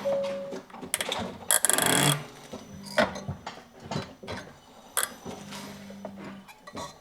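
Irregular sharp clicks and knocks from a worn left-side driveshaft CV joint on a 2018 Hyundai Ioniq Hybrid, heard through a microphone mounted on the wheel bolts as the car pulls away. The clicking is the sign of a failing CV joint, and the left driveshaft needs replacing.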